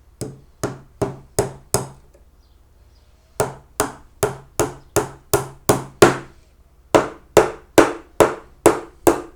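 Small hammer tapping gimp pins into the thin wooden bottom bar of a British Standard beehive brood frame. Quick, evenly spaced strikes come about two to three a second, in three runs with short pauses between.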